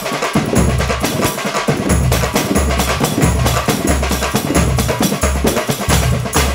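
Dance music track with heavy drums and a steady, evenly repeating bass beat.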